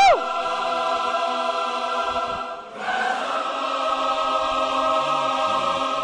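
A choir singing two long held chords, the second starting a little under three seconds in, with a brief falling swoop at the very start.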